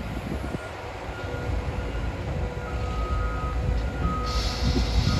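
Cat 325 hydraulic excavator's diesel engine running with a low rumble while digging, with short reversing-alarm beeps sounding on and off over it. A hiss starts about four seconds in.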